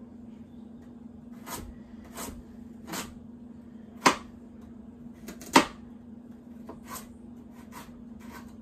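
Chef's knife slicing a carrot on a cutting board: irregular sharp knocks as the blade cuts through and strikes the board, two of them louder around the middle, over a faint steady hum.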